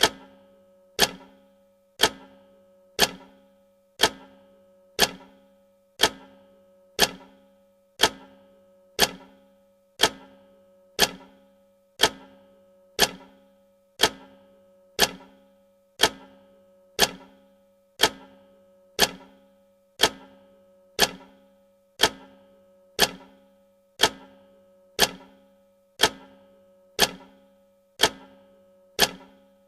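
Clock-style tick sound effect of a countdown timer, one sharp tick every second, each with a short ringing tail that fades before the next.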